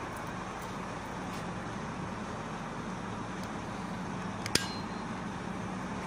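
Steady low workshop hum, with one sharp metallic clink of a hand tool against the bare engine's metal a little after four seconds in, ringing briefly.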